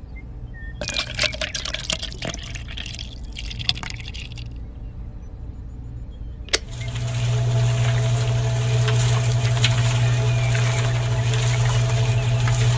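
Water splashing and trickling. About six and a half seconds in there is a click, and a small electric water pump starts up, running with a steady hum over the water.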